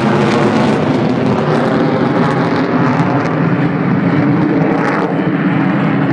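Rockwell B-1B Lancer's four General Electric F101 turbofans running in full afterburner on takeoff: a loud, steady jet roar whose highest part thins out after the first second as the bomber moves away.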